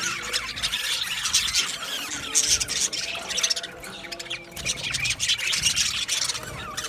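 A flock of budgerigars chirping, warbling and squawking, many birds calling over one another without a break.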